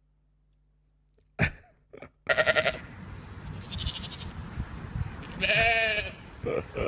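A farm animal bleating once, an arching call a few seconds in, over outdoor background noise that starts after a short silence and a click.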